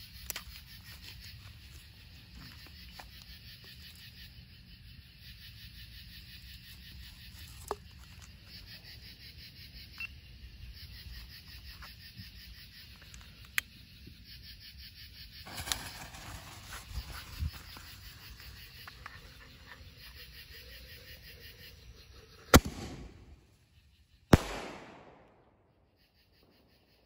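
Consumer artillery ball shell being fired: a burning fuse hissing for several seconds, then a sharp report as the lift charge fires the shell from its tube, and a second loud report under two seconds later as the shell breaks overhead, trailing off in an echo.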